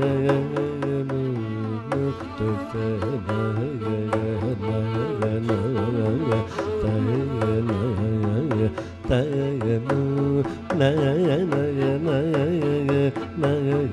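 Male Carnatic vocalist singing with sliding, ornamented pitch, shadowed by violin, over steady low drone and frequent hand-drum strokes of mridangam-style percussion, in a ragam-tanam-pallavi set in ragas Bahudhari and Rathipathipriya, Adi tala.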